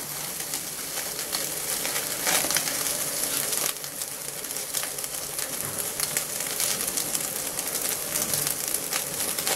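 Rib-eye steak sizzling on a very hot cast-iron grate, a steady hiss with many small pops as the freshly turned side sears.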